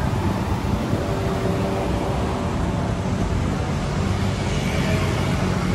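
Road traffic with motor vehicle engines running steadily close by.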